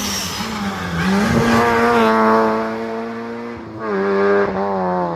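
Rally car engine revving hard as it drives along the stage. The engine note peaks about two seconds in, dips briefly after three seconds, then pulls hard again.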